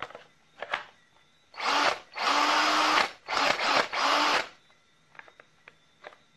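Cordless drill motor running in about four short trigger pulls on a freshly repaired Makita BL1813G 18 V battery, a couple of clicks coming first: the battery is powering the drill again.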